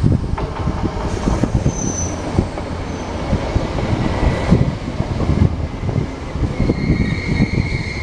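Sanyo Electric Railway electric train passing close by, its wheels knocking steadily over the rails. A high steady wheel squeal joins in over the last second or so.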